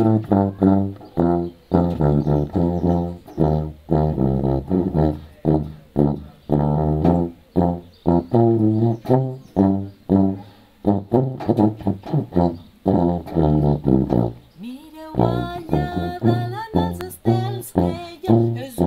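Tuba playing a bouncy tune of short, detached low notes. About fifteen seconds in, a woman starts singing along over it.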